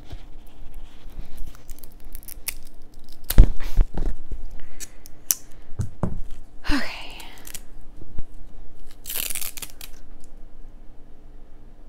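Hands working potting soil around plant cuttings in a pot beside a plastic moss pole: scattered knocks and crunchy rustles, the loudest knocks a few seconds in and a crackling rustle later.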